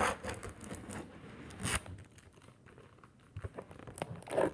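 Packing tape being peeled and ripped off a cardboard box, loudest over the first two seconds, followed by quieter rustling and crinkling of the cardboard and a short scrape near the end.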